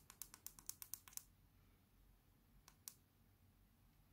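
Small tactile push-buttons on a DSO138 oscilloscope kit clicking faintly as they are pressed: about ten presses in quick succession, then two more a second and a half later.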